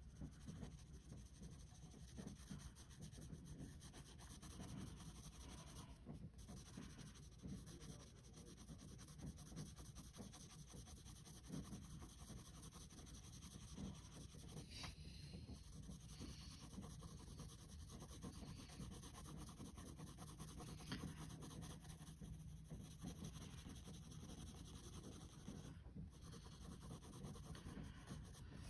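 Faint, continuous scratching of a graphite pencil shading on sketchbook paper in many quick small strokes.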